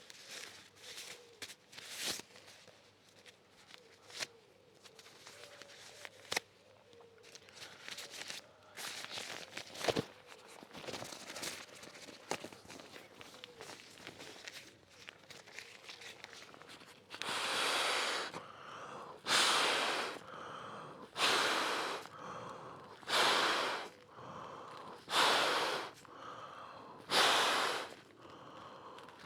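Soft rustling and small clicks of camping gear being handled, then a little past halfway a person starts blowing by mouth into the valve of an insulated air mat to inflate it: seven long breaths, one about every two seconds.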